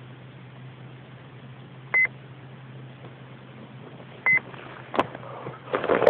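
Short, high electronic beep, one steady tone, sounding twice about two seconds apart over a steady low hum. Near the end a click and then rustling and knocking as the camera is picked up out of the grass.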